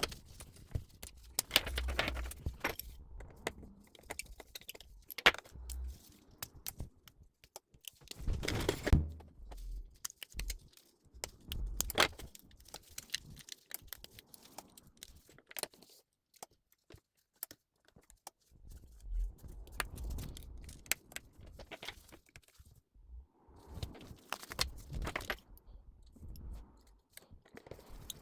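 Irregular clicks, taps and scraping of small metal tools and phone parts being handled during a phone repair, with a few louder knocks about 9 and 12 seconds in.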